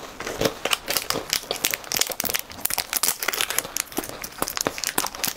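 Shiny plastic wrapper of a chocolate wafer bar crinkling and tearing open close to a clip-on microphone, a dense run of crackles.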